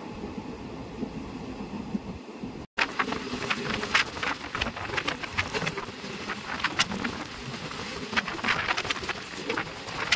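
Passenger express train running, a steady rumble of wheels and coach. About two and a half seconds in the sound cuts out for an instant, and after that many sharp, irregular clicks and knocks sound over the rumble.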